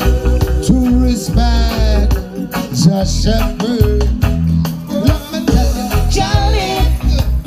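A reggae song performed live: a heavy bass line and regular drum hits, with a lead singer and backing singers singing over it.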